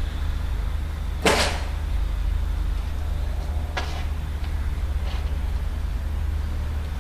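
Metal rattle from a wire pet crate and its steel food bowl as kittens clamber about: one sharp clatter about a second in, then two lighter clicks, over a steady low rumble.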